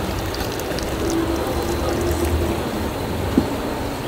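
Dark soba broth pouring in a thick stream into a stainless-steel pot, splashing into the liquid already in it, over a steady low rumble. A short knock sounds about three seconds in.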